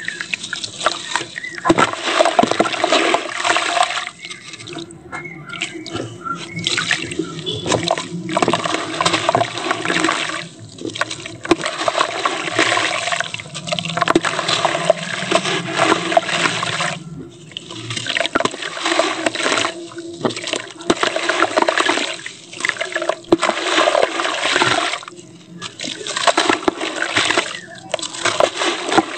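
A soaked cement-sand block being crumbled and squeezed by hand over a tub of water, gritty crumbs pouring and splashing into the water. It comes in repeated spells with short pauses between them.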